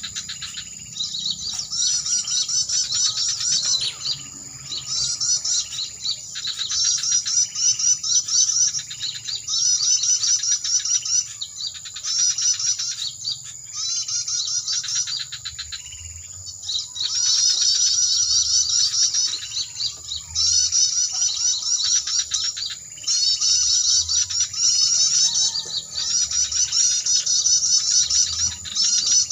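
Bird-lure recording played through a small MP3 player speaker: dense, rapid, high chirping trills of small birds coming in bursts of a second or two, over a steady high tone.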